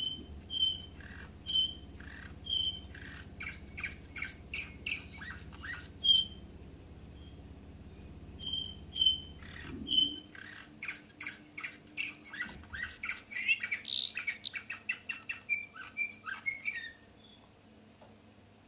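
Caged domestic canary singing. Clear repeated chirps alternate with runs of fast, rapid notes, in two bursts with a pause of a few seconds between them. The song stops shortly before the end.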